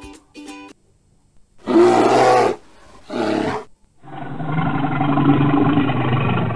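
A bear roaring: two short roars, then a longer growling roar of about three seconds.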